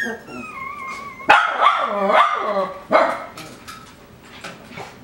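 Coton de Tulear puppies vocalising: a thin, wavering high whine, then a loud run of yapping barks starting just over a second in, and one more bark near three seconds.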